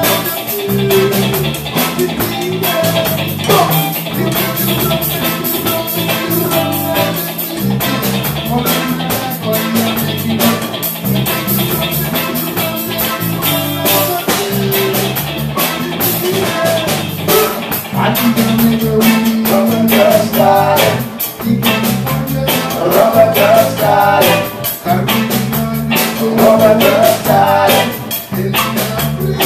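A live reggae band playing: a bass line, drum kit, guitar and keyboard, with a man singing lead into a microphone. The singing comes in more strongly in the second half.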